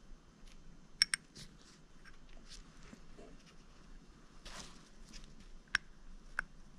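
Faint handling noises as a 6902RS sealed ball bearing is set into its seat in a Bafang G60 hub motor: two sharp clicks close together about a second in, a soft rustle in the middle, and two more sharp clicks near the end.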